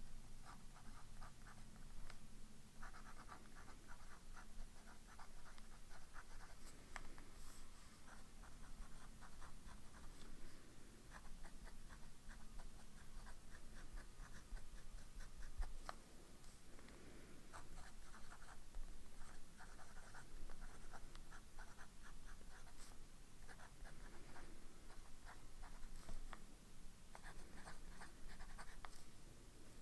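Sailor 1911S Fresca fountain pen's zoom nib writing on notebook paper: soft scratching of the nib across the page in runs of a few seconds as words are formed, with short pauses between them.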